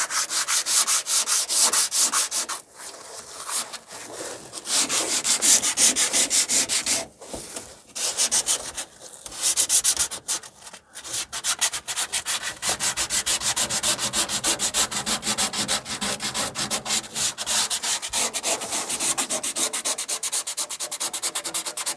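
A sanding disc rubbed by hand over the coated top of a pickup-bed rib in quick back-and-forth strokes, scuffing the surface to prep it for an adhesive Velcro strip. Fast, even strokes with a few brief pauses.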